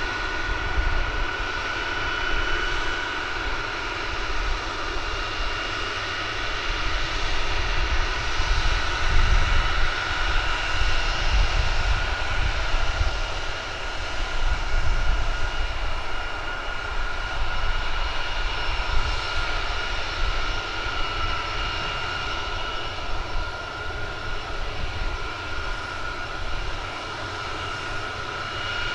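Boeing KC-135R Stratotankers taxiing past on their four CFM F108 turbofans at low power: a steady high engine whine over a low rumble.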